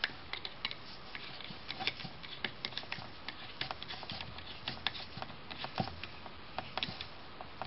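Screwdriver turning a terminal screw on a two-prong electrical receptacle to clamp the circuit wire under it: a run of small, irregular clicks, several a second.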